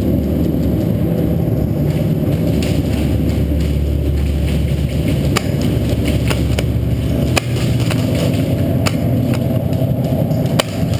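Steady low rumble of a large indoor airsoft arena, with scattered sharp clicks and snaps of airsoft gunfire, about seven of them from roughly halfway through. The deepest part of the rumble eases off about two-thirds of the way in.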